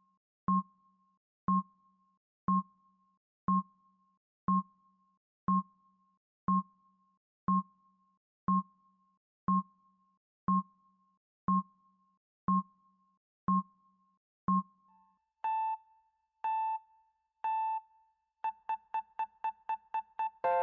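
Countdown timer sound effect: an electronic tick once a second for about fifteen seconds, then three longer beeps a second apart, then a quick run of about eight short beeps as the count reaches zero.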